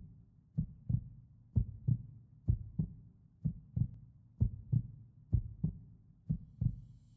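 Heartbeat, a steady lub-dub: pairs of low thumps about once a second, roughly 60 beats a minute.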